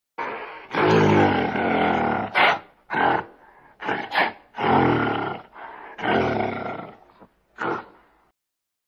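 A large animal giving a series of deep calls: three long ones, each about a second, with shorter calls in between.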